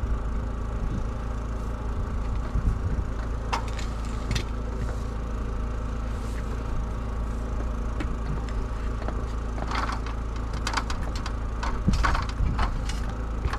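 Steady low hum of an idling engine, with scattered knocks and clicks about three to four seconds in and again near the end.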